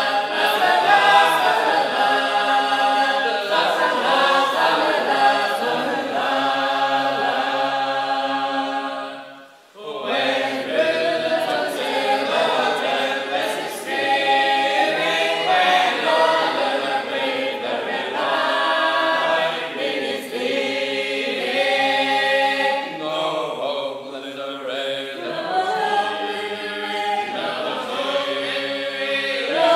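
Sacred Harp shape-note choir singing a cappella in parts. The singing stops for a moment about nine and a half seconds in, then carries on.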